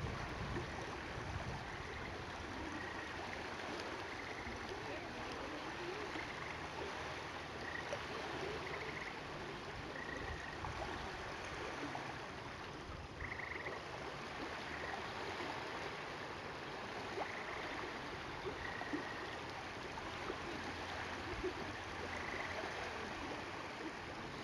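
Small waves lapping on a sandy freshwater lakeshore, a steady wash of water noise. Faint short high chirps recur irregularly every second or two.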